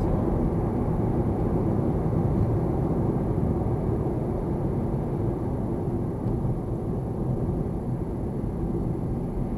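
Steady road and tyre noise with engine hum from a moving car, heard inside the cabin, gradually getting a little quieter.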